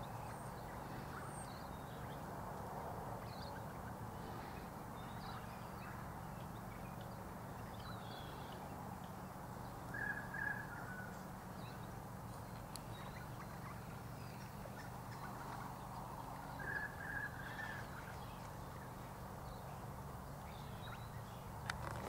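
Faint wild bird calls in a garden: a short call of a few notes about halfway through and again about three-quarters of the way through, with scattered faint chirps, over a steady low hum.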